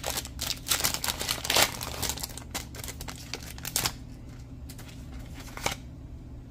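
Foil wrapper of a Pokémon Champion's Path booster pack crinkling and tearing as it is opened by hand, a dense run of crackles for about four seconds, then a few softer rustles and taps as the cards are handled.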